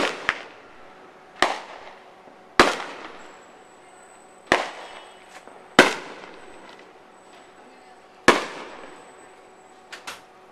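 Aerial firework shells bursting: about eight sharp bangs spaced one to two and a half seconds apart, each trailing off in an echo.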